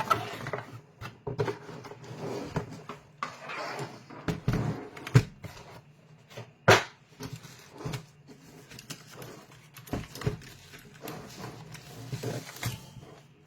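A cardboard box and its packing being handled as a mechanical keyboard is lifted out: irregular rustling and scraping with scattered knocks and clicks, the sharpest about five and about seven seconds in.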